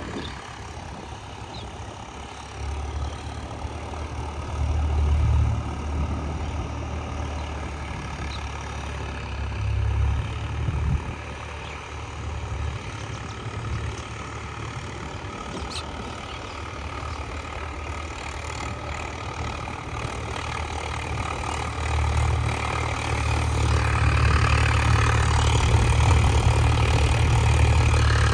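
Swaraj 744 FE tractor's three-cylinder diesel engine running with a steady low rumble that swells and eases several times and grows louder over the last few seconds.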